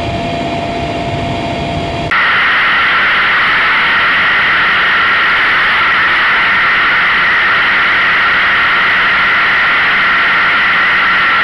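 Mi-8AMTSh helicopter in flight. For about the first two seconds the sound is heard from inside the cabin: a low rumble with a steady hum. About two seconds in it changes abruptly to a louder, steady rushing noise of wind and rotor on a camera mounted outside the fuselage.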